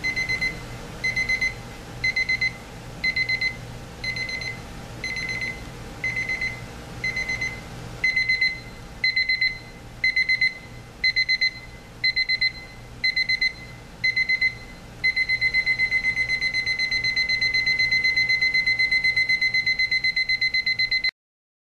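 Advance LCD digital alarm clock's ascending alarm sounding: a high electronic beep in short rapid-pulsed bursts about once a second. About fifteen seconds in it becomes continuous rapid beeping, which cuts off suddenly near the end.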